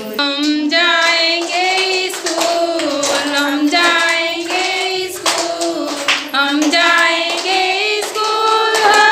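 A song sung throughout, with hand claps landing at irregular moments through it.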